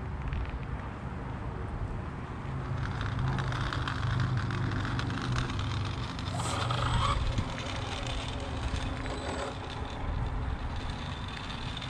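A motor vehicle's engine running, a steady low hum over street background noise, with a short higher-pitched sound about six and a half seconds in.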